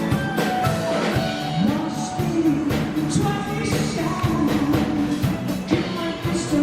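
Background music from a live rock band: a drum kit keeping a steady beat under guitar and keyboard, with a sung melody.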